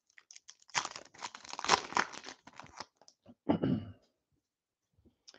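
Foil trading-card pack wrapper being torn open and crinkled by hand, in a longer rustle followed by a shorter one.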